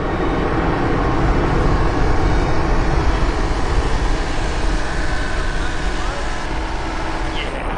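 Kobelco SK30UR mini excavator's diesel engine running, a steady low drone.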